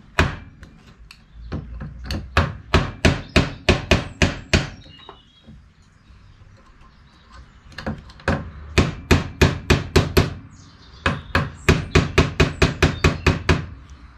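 Hammer tapping a ground-down steel rod used as a punch, driving the roll pin out of a classic Mini differential cage held in a bench vise. Rapid metal-on-metal blows, about four to five a second, come in three runs with two short pauses; the pin is moving out.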